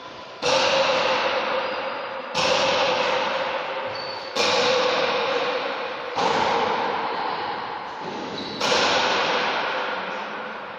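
A pala goma argentina rally: the rubber ball cracking off wooden paddles and the court walls, five sharp hits about two seconds apart, each ringing on in the court's long echo.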